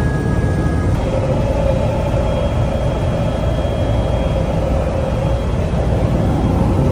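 Helicopter engine and rotor running steadily, a loud constant drone with a hum in the middle range.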